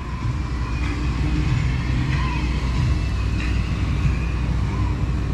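Steady low rumble of heavy-equipment engines running, with faint distant voices over it.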